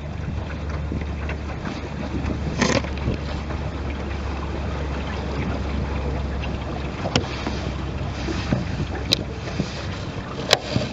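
Wind buffeting the microphone and water moving along a small sailboat's hull, over a steady low rumble, with a few short sharp knocks scattered through.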